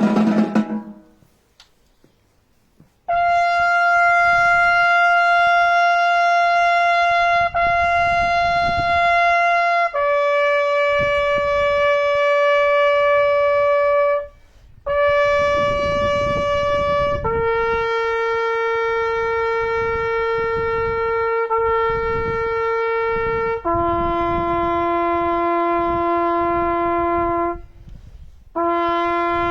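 A single band wind instrument playing a slow line of long held notes, one at a time and mostly stepping downward in pitch, with short breaks for breath between them. It comes in about three seconds in, after a brief near-silence.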